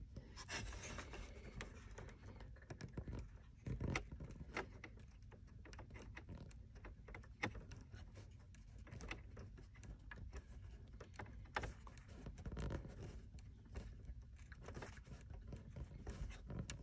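Small plastic tap-style wire connector handled and pushed together by hand: faint scattered scrapes, rubs and light clicks as the purple wire's piece is inserted and tightened onto the orange-wire tap.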